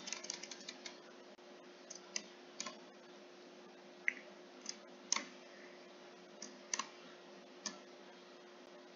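Computer keyboard keystrokes: a quick run of key presses in the first second, then single presses every second or so.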